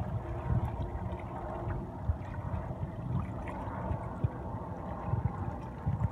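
Harbour water lapping and gurgling, with small irregular splashes over an uneven low rumble.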